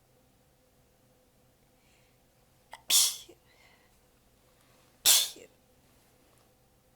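A woman sneezing twice, about two seconds apart, as part of a long sneezing fit. Each sneeze comes sudden and short, held back a little because she is worn out. A third sneeze starts right at the end.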